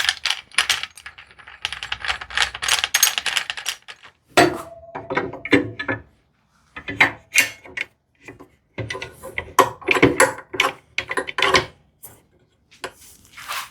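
Clamps and wooden parts being handled and fitted for a glue-up: a string of sharp clicks, knocks and short metallic rattles, with brief pauses between them.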